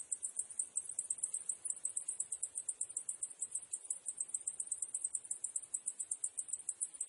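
Cicadas chirping in a high-pitched, fast, even pulsing that keeps up without a break.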